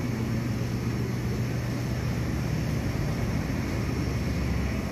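A steady low mechanical hum over a constant background noise, with no distinct events.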